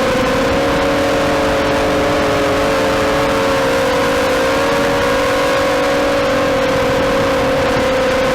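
FPV quadcopter's electric motors and propellers running: a steady whine of several close pitches that drift slightly apart and back together, over a rush of air.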